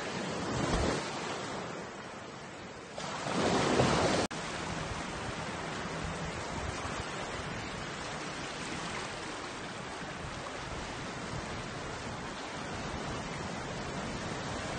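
Sea surf washing over a rocky shoreline, a steady rush of water noise, with two louder surges in the first four seconds that stop abruptly just after the fourth second.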